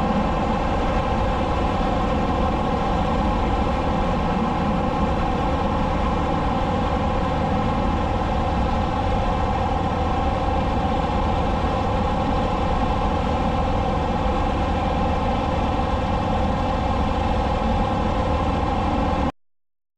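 Motorcycle engine running at a steady highway cruising speed, a constant unchanging drone. It cuts off suddenly near the end.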